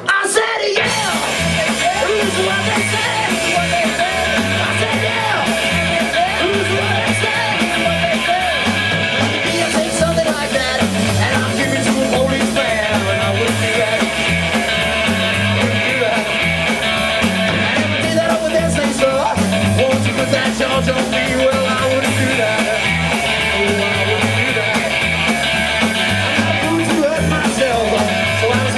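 Live rockabilly band playing: electric guitar, upright double bass and drum kit keeping a steady, driving beat.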